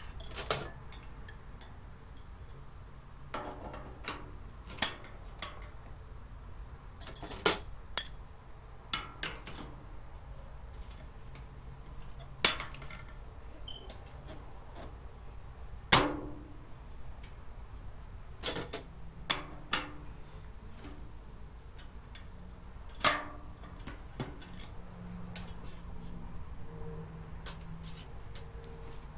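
Parts of a 3-tier storage cart being handled and fitted together during assembly: irregular clinks and knocks, a few louder ones standing out.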